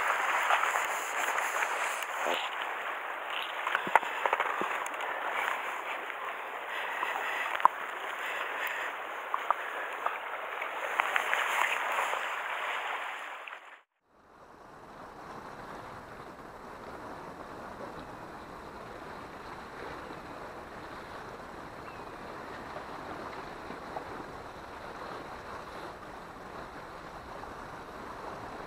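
Sea water sloshing and washing against the shore rocks close by, with scattered sharp clicks and knocks. About halfway through the sound cuts out, and a quieter, steady wash of the sea follows.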